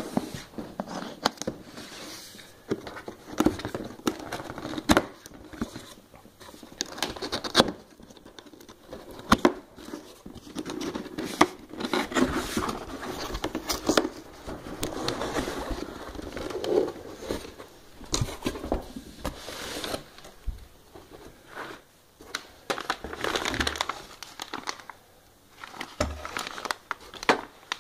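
Cardboard box and plastic wrapping being handled during unpacking: irregular crinkling and rustling, with scattered short clicks and knocks.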